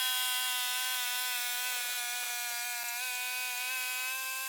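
Portable band sawmill running through a cedar log on a cutting pass, a steady whine with many overtones that sinks slightly in pitch as the cut goes on.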